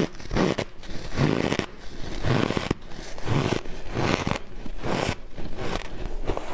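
Refrozen shaved ice crunching as it is bitten and chewed, a run of crunches about once a second.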